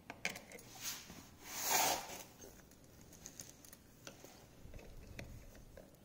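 Pliers clicking and scraping on a steel screw stuck through an ATV axle's castle nut in place of a cotter pin, as it is twisted and straightened to pull it out: faint scattered ticks, with a brief louder rush of noise around two seconds in.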